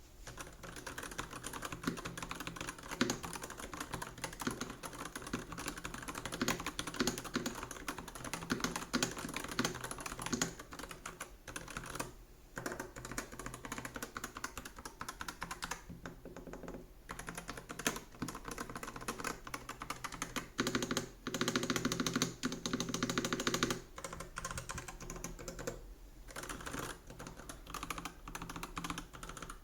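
Typing on an Epomaker HE75 Mag wireless 75% mechanical keyboard with magnetic (Hall effect) switches: a steady run of rapid keystroke clacks. There are brief pauses about twelve and sixteen seconds in, and a denser, louder burst of typing a little past twenty seconds.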